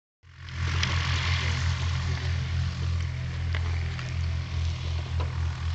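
Light aircraft piston engine and propeller running steadily, a low drone that pulses in level, with an airy hiss over it.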